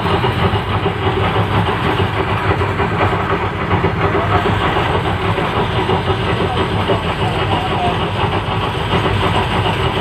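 Wheels and bogie of a passenger train at speed: a steady, loud rumble of steel wheels on the rails with the rattle of the running gear.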